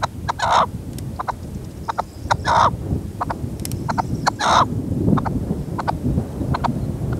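Red-legged partridge decoy calling from its cage: three longer harsh calls about two seconds apart, with short clipped notes between them. Gusty wind rumbles on the microphone throughout.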